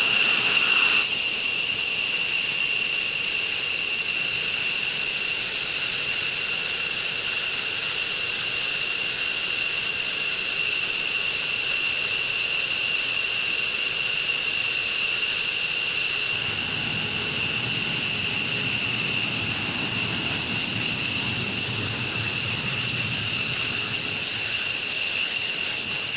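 F-15 Eagle's twin turbofan engines running at ground idle: a steady high-pitched turbine whine. A low rumble joins it about two-thirds of the way through.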